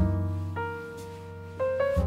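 Slow background piano music. A deep bass note is struck at the start and dies away, a few higher melody notes enter above it, and a new bass note sounds right at the end.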